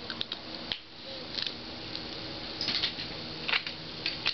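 A series of short, sharp metal clicks and clacks from hand tools: side cutters snipping the probe's cable wire, then the cutters and a small metal socket being set down.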